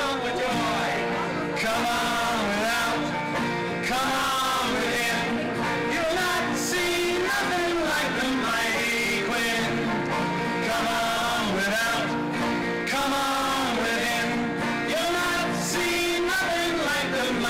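Live acoustic string band playing: a banjo and acoustic guitars picked and strummed together, with singing over them.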